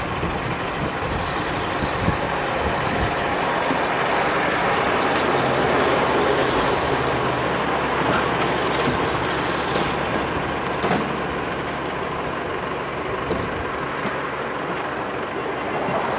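Street traffic: a large road vehicle such as a bus or truck running past, its noise swelling to a peak about six seconds in and then easing off, with a few faint clicks near the end.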